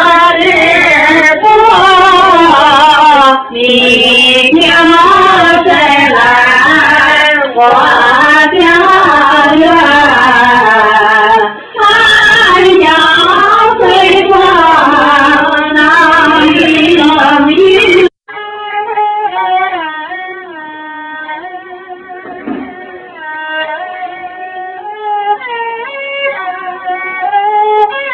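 Voices singing loudly, close to the microphone, with wavering pitch. About eighteen seconds in this cuts off abruptly and quieter music with steadier held notes follows.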